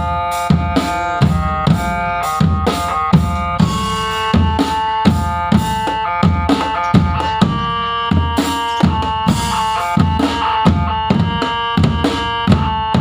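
Drum band playing a tune: bass and snare drums keep a steady beat, about two to three strokes a second, under a melody from pitched melodic instruments.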